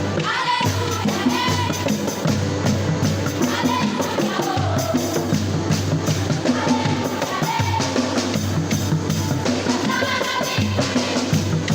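Gospel praise music: a melody carried over a steady bass line and a busy drum kit.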